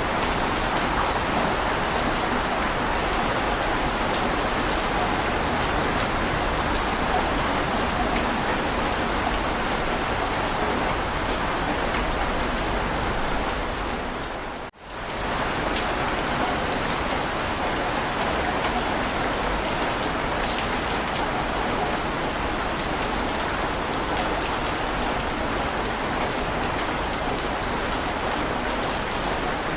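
Heavy rain falling steadily, an even hiss of drops. About halfway through it fades out to near silence for an instant and comes straight back at full strength.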